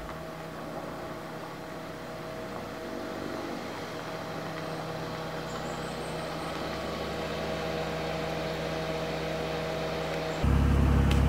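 An old saloon car's engine running at low speed as the car rolls slowly closer, getting gradually louder. About ten seconds in, a much louder, deeper engine sound comes in suddenly.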